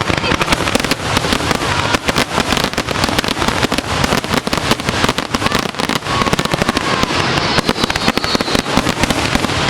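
Fireworks exploding in a dense, continuous barrage: many sharp bangs and crackles a second, with no pause.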